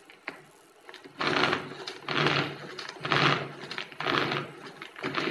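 Pull-cord manual vegetable chopper chopping onions: its cord is pulled five times, about once a second from about a second in, each pull a short whirr of the spinning blades against the onion in the plastic bowl.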